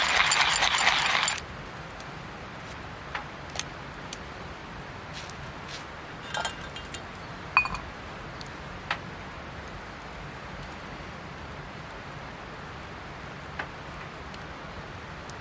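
A loud hiss that cuts off suddenly just over a second in, then a handful of scattered light metallic clinks and taps, one or two ringing briefly.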